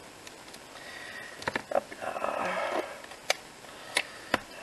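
Paper and tape being handled on a craft table: a few light clicks, a brief rustle about two seconds in, then three sharp separate clicks.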